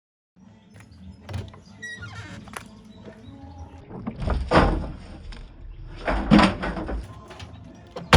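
Vestel washing machine drum turning with a 6-litre water bottle inside: irregular rumbling and knocking, with two heavy thuds about two seconds apart as the bottle tumbles, then a sharp click near the end.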